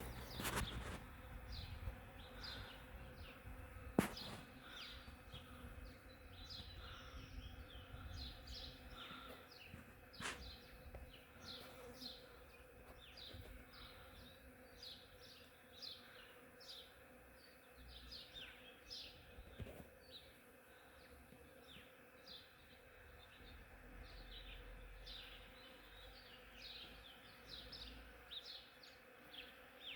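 Hundreds of honeybees foraging in a flowering ornamental cherry tree, their wings making a steady droning buzz. Frequent short high chirps run over the drone, and two sharp knocks sound about four and ten seconds in.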